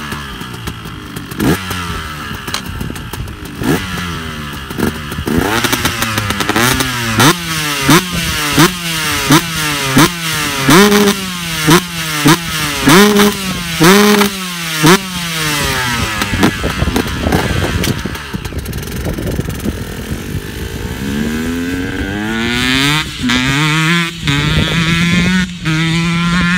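2008 KTM 144 SX two-stroke dirt bike with an FMF Shorty silencer, revved hard on the spot in quick blips about once a second. Near the end it accelerates away through the gears, its pitch climbing and dropping at each shift.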